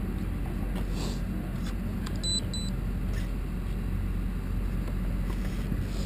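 A steady low rumble, with two short high-pitched electronic beeps a moment apart about two seconds in.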